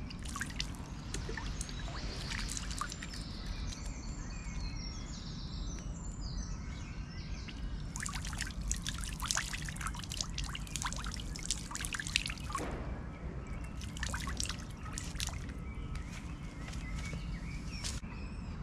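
Water pouring and trickling from a small plastic bottle into a pond, splashing in spells, heaviest a little past halfway through and again shortly after.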